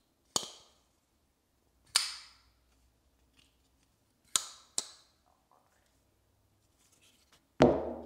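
Petrified Fish P08 folding knife's blade snapping open and shut: four sharp metallic clicks, the last two close together, then a louder clack that rings briefly near the end.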